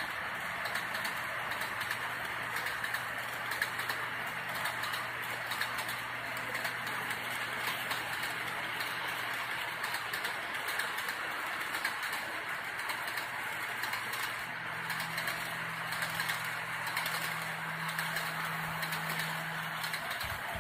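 Model freight train's wagons rolling steadily along the track, an even rushing wheel noise with a low steady hum under it; a second, slightly higher hum joins about three-quarters of the way through.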